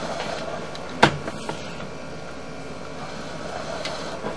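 Steady hiss with one sharp knock about a second in and a few lighter clicks after it, as a sewer inspection camera's push cable is pulled back through the drain line.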